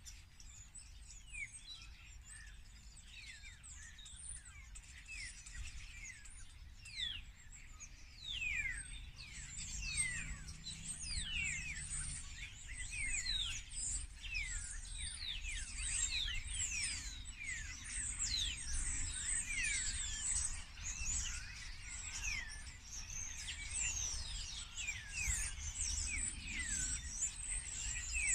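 Many small birds chirping and singing together, a dense chorus of quick falling notes that grows louder about eight seconds in, over a faint low rumble.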